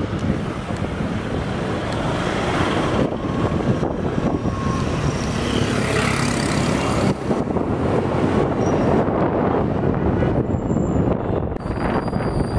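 Riding on a moving motorcycle in city traffic: steady wind rush on the microphone over the motorcycle's running engine and the passing traffic.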